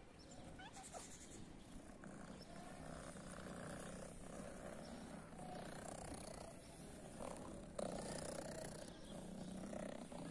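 Tabby cat purring steadily while being stroked, the purr stronger from about two seconds in.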